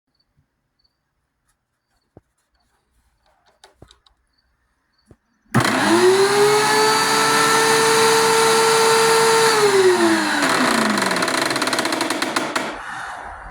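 DeWalt DW735 thickness planer starting up about five seconds in, running at a steady pitch, then shut off and winding down, with a rapid run of loud clicks, the chain ratcheting, as it spins down. The ratcheting on shut-off is the sign of binding feed-roller bushings making the drive chain skip.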